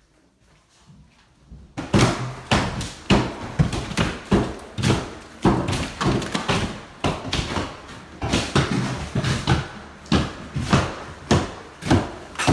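Demolition blows tearing out an interior wall: a fast, irregular run of hammer strikes and knocks, about two or three a second, starting about two seconds in.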